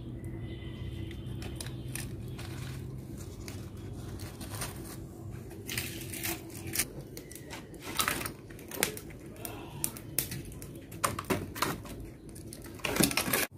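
Dry leaves, paper and firewood being fed into the firebox of a clay mud stove (mati chula) while it is lit: irregular rustling, crinkling and sharp clicks and knocks of wood. These grow busier after the middle, with a dense burst of rustling near the end.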